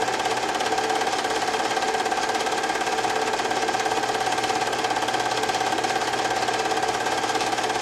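Film projector running: a steady mechanical whir with a fast, even flutter from the film advancing through the gate.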